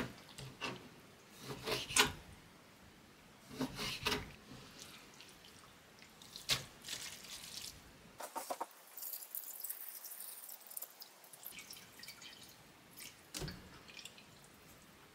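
Knife chopping wet rabbit skin on a wooden cutting board, a sharp chop about every two seconds. Then a few seconds of wet dripping and patter as the soaked pieces are handled in a stainless steel saucepan, with a couple of soft knocks.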